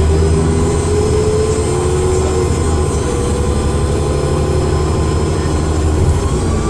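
Dennis Trident II double-decker bus running under power: a low, steady diesel engine drone with a thin whine that rises slowly in pitch over the first few seconds, the turbo whine this bus is known for.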